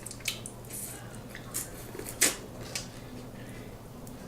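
Close-up eating sounds of someone eating seafood-boil crab legs: scattered wet clicks, smacks and squishes, the sharpest about two seconds in.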